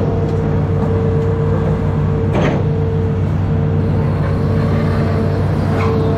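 Amphibious excavator's diesel engine and hydraulics running steadily under load, with a constant low rumble and a steady whine as the boom swings and the bucket digs. A sharp knock sounds about two and a half seconds in, and another near the end.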